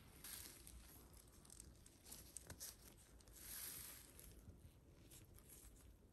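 Faint handling noises of a plastic prefilled saline flush syringe and a plastic apron: soft rustling and a few small clicks, with a brief swell of rustle about three and a half seconds in.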